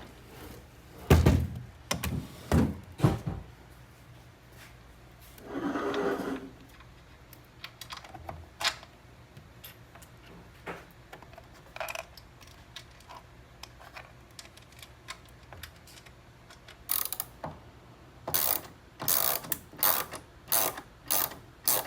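Hand tools working bolts and nuts on a metal frame: scattered knocks and clanks, and a short rasping burst about six seconds in. Near the end comes a run of sharp clicks, about two a second, as a 7/16 driver snugs the nuts on 1/4-20 bolts.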